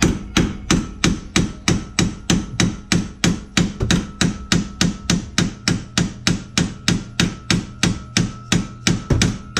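A 20-ounce mallet striking a nut threaded onto a press-fit suspension bolt, driving the bolt out: a steady run of sharp metal blows, about four a second.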